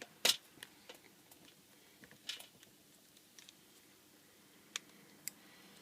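Plastic clicks and light scrapes as an opening tool pries at the edge of a Nokia E72's front housing, working it loose from its clips. A sharp click comes about a quarter second in and another just after two seconds, with fainter ticks in between and near the end.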